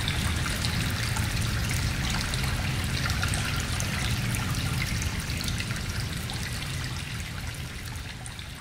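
Steady trickling, running water with a low rumble underneath, fading out gradually over the last few seconds.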